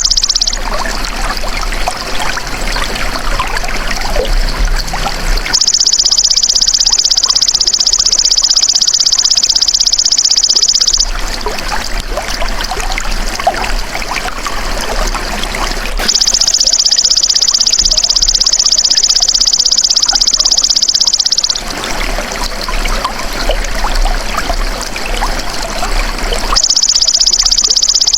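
Belalang emas (golden grasshopper) singing in high, rapidly pulsed buzzing trills about five seconds long, with pauses of about five seconds between them, three times plus the end of one just at the start. A steady trickle of running water goes on underneath and fills the pauses.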